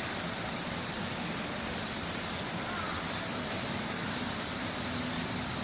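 Steady high-pitched drone of insects calling, unbroken throughout.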